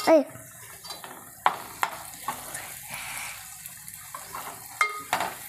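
A spoon stirring capsicum curry in a metal pot, scraping through it and knocking sharply against the pot about four times, the last clank ringing briefly, over a steady sizzle of the curry cooking on the stove.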